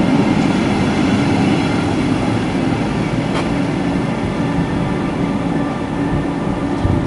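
Metronom double-deck passenger train rolling past and pulling away: a steady rumble of wheels on rail with a low hum underneath, one sharp click about three and a half seconds in, getting slightly quieter toward the end.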